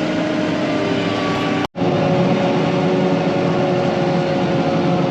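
Diesel engine of farm harvest machinery running steadily: a constant hum with several steady tones. It drops out completely for an instant a little under two seconds in, then carries on unchanged.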